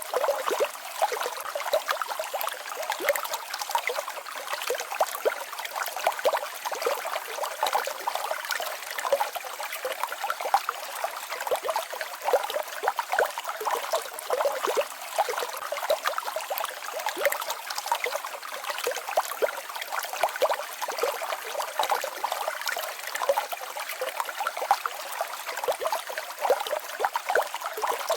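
Small mountain waterfall and stream babbling and splashing, with many quick splashy flickers in its steady rush.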